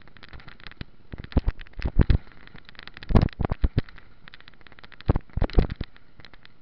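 Bicycle rattling and clattering as it rides over rough ground, picked up by a camera mounted on the bike or rider: clusters of sharp knocks a second or two apart over steady rolling noise.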